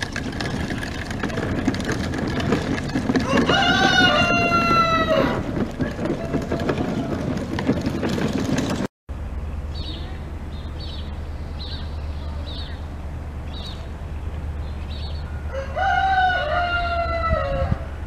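A rooster crowing twice, each crow about two seconds long: once a few seconds in and again near the end. Small birds chirp in between.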